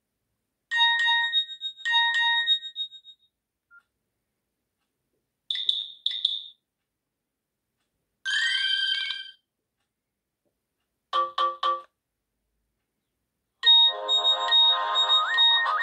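Nokia 6680 mobile phone playing a series of short ringtones and alert tones one after another, with silent gaps between them: a double chime, a short two-note beep, a brief jingle, three quick beeps, then a longer melody starting near the end.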